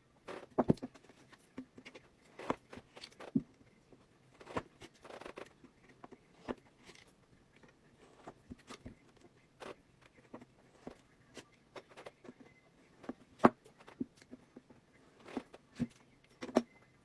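Irregular taps, clicks and knocks of things being handled on a work surface, with a few sharper knocks: once early, once past the middle and once near the end.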